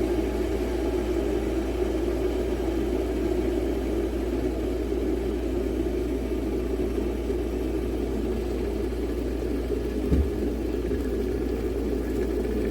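Stainless steel electric kettle heating water toward the boil: a steady low noise with one brief knock about ten seconds in.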